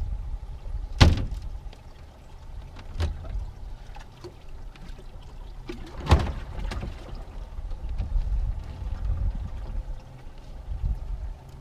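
A few sharp knocks and bumps against an aluminium boat hull: one about a second in (the loudest), another at three seconds and a third around six seconds, over a low, steady rumble from the boat on the water.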